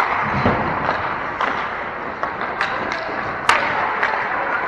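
Ice hockey play in a rink: sharp knocks of sticks and puck, a strong one at the start and the loudest about three and a half seconds in, with smaller ones between, over a steady noisy arena hiss.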